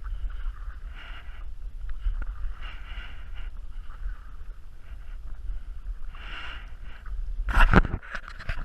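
Kayak paddle dipping and swishing through the water in a few soft strokes, over a low rumble of wind on the microphone, with one sharp knock near the end.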